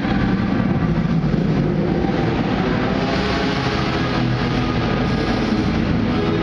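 A car's engine running as it drives round an indoor arena track, over music playing through the hall.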